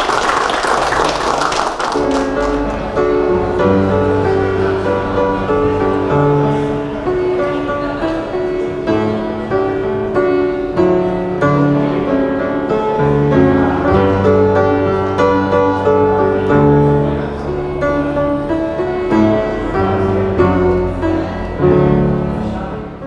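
Grand piano played solo, a melody over low bass notes, after a couple of seconds of crowd noise at the start.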